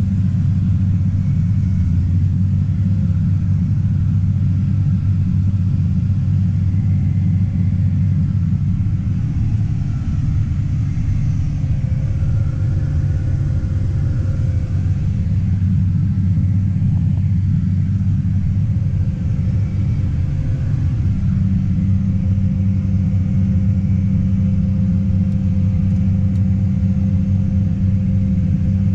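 Tractor engine running steadily as it pulls a grain cart: a continuous low drone whose note shifts slightly about two-thirds of the way through.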